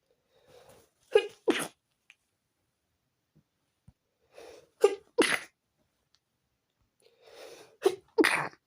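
A woman sneezing repeatedly in an uncontrolled sneezing fit: three sneezes about three seconds apart, each a short catching breath in followed by a sharp two-part "ah-choo".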